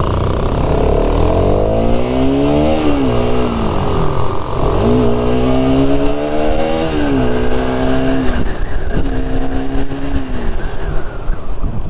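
Bajaj Pulsar RS200's single-cylinder engine under way, its pitch climbing and then dropping back several times as the rider accelerates and changes gear, with wind rushing over the microphone.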